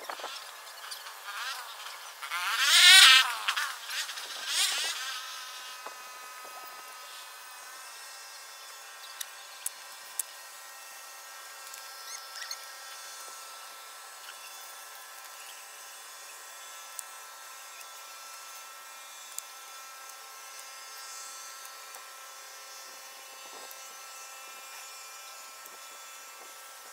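A flying insect buzzing close by, its pitch wavering, from about two to five seconds in. A faint steady high hum and a few small clicks follow.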